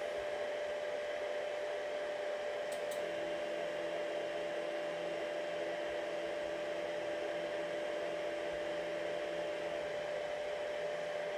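Makera Carvera desktop CNC machine running with a steady whir and a constant hum. From about three seconds in until near the end a fainter low drone joins while the automatic tool changer carries out its M490.2 command, with a faint click just before it starts.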